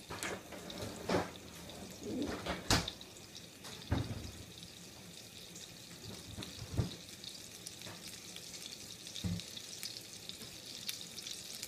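Beyond Burger patties frying in oil in a pan: a steady sizzle with a few sharp pops and clicks scattered through it.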